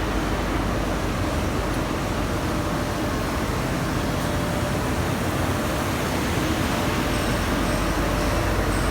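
Bodor P3015A fiber laser cutting machine running, a steady mechanical hum and hiss.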